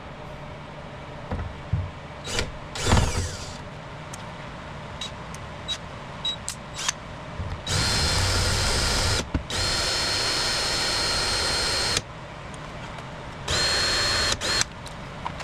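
Power drill boring out the rivets that hold a car door's window regulator. It runs in three bursts with a steady high whine, the middle burst the longest, after a few short knocks and clicks early on.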